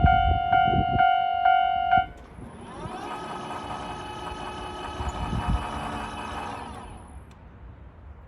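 Japanese railway level-crossing alarm ringing its electronic bell, about two strikes a second, stopping about two seconds in. Then a steady hum of several tones swells and fades away over about five seconds.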